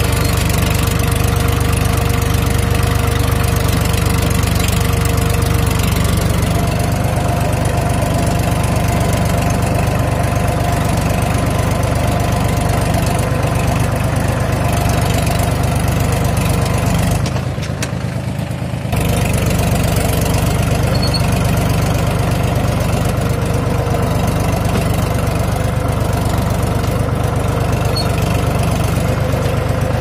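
Farm tractor's diesel engine running steadily under load as it pulls a spring-tine cultivator through ploughed soil. The sound briefly dips and dulls a little past halfway.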